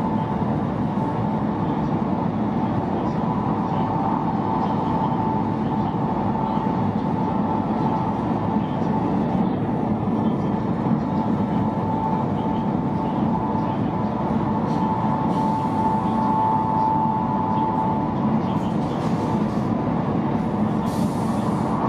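Steady running noise heard inside the cabin of a high-speed bullet train at speed: an even rumble and rush with a thin steady whine running through it.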